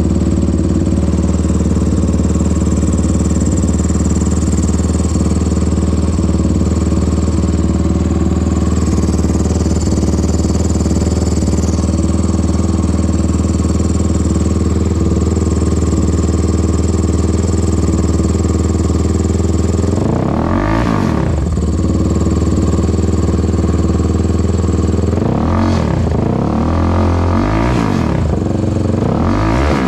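Suzuki LTR450 quad's fuel-injected single-cylinder engine idling steadily just after starting, then revved in several short throttle blips, each rising and falling, over the last third.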